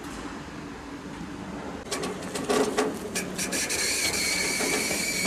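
A machine running: a steady high whine with rattling clicks that starts about two seconds in, over a low background rumble.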